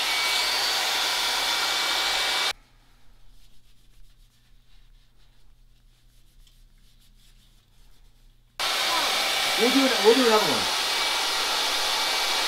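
Handheld hair dryer blowing steadily, warming a leather knife sheath so the conditioner soaks into the leather. It cuts off abruptly about two and a half seconds in and switches back on about eight and a half seconds in.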